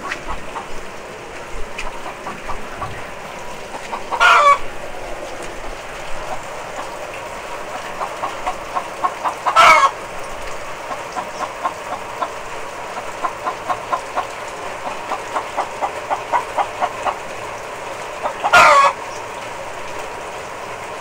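Chicken cackling in steady rain: runs of short, evenly spaced clucks, broken three times by a loud, drawn-out squawk.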